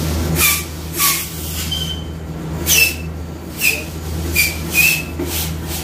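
About seven short, quick hissing bursts of air, several ending in a brief squeal, over a steady low hum.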